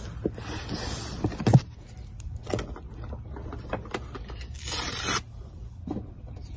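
Hand sanding of cured chop strand fibreglass on a boat deck, to take the patch edges down flat: a long rasping stroke at the start, a shorter one about five seconds in, and scattered knocks, the loudest about a second and a half in.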